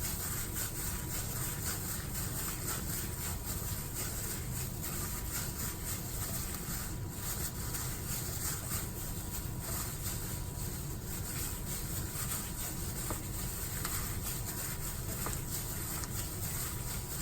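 Hands squeezing and kneading a chicken breast mixture seasoned with red curry paste and sauces, a steady wet rubbing and squishing with many small irregular squelches.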